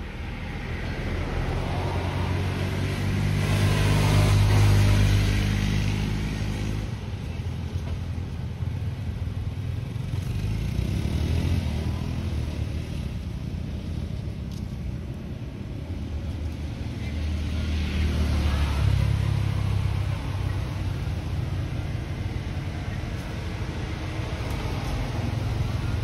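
Motor vehicles driving past, two of them swelling up and fading away, one peaking about four seconds in and the other about nineteen seconds in, with a lower engine rumble between.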